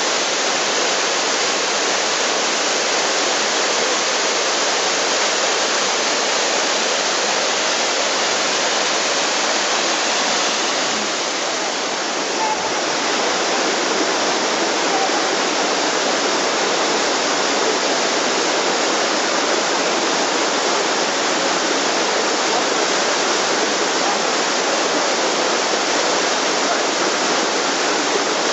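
Waterfall pouring onto rocks: a steady rush of falling water, with a brief dip in level and a soft knock near the middle.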